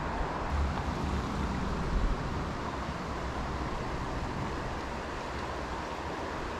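Steady rushing of a rocky mountain river's flowing water.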